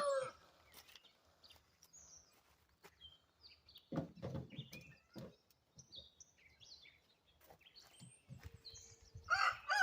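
Faint small-bird chirping, with a few dull knocks about four to five seconds in; near the end a rooster starts crowing, a long held call that falls away.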